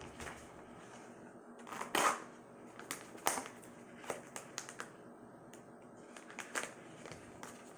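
Plastic zip-lock bag crinkling and crackling as it is handled and pulled open, in a string of short, sharp, scattered crackles, the loudest about two seconds in.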